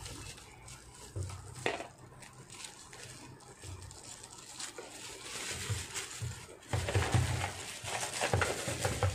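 Thin polythene wrapper crinkling and rustling as it is pulled off and bunched up by hand, getting louder in the last third.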